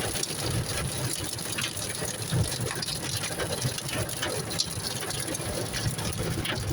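Hailstones pelting a car's roof and windshield in a dense run of rapid, irregular ticks, over the low rumble of the car driving, heard from inside the car.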